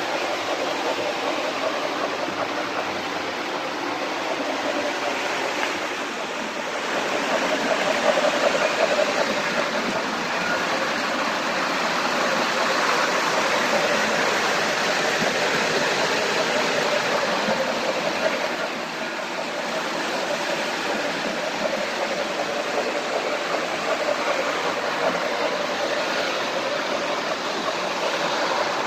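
O-gauge model trains running on three-rail metal track: a steady rolling rush of wheels and motors with a faint hum.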